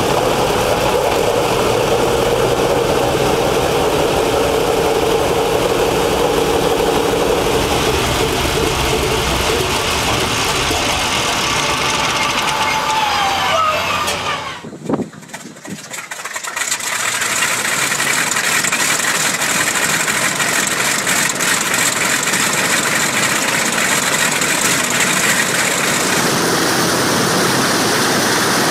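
Pratt & Whitney R-4360 28-cylinder four-row radial aircraft engine running, then shut down about fourteen seconds in, its note falling as the propeller winds down. After a brief lull, a Bristol Centaurus 18-cylinder sleeve-valve radial aircraft engine is heard running steadily.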